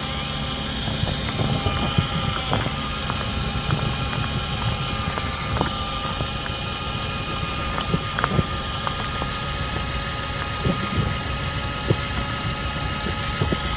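Cordless drill's electric motor, its battery removed and running straight off solar panels, turning a propeller shaft as the outboard of a small dinghy: a steady, even whine. A few short knocks sound now and then.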